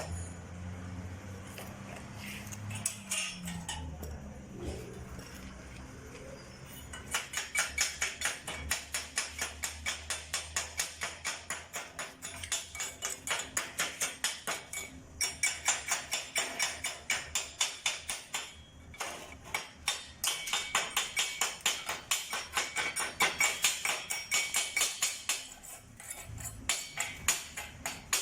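Chipping hammer knocking slag off a stick weld on steel: quick, even taps about five a second, starting several seconds in and running in bursts with short pauses.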